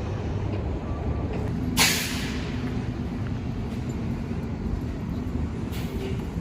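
City street traffic rumbling steadily, with a sharp hiss of air brakes released about two seconds in and a softer hiss near the end.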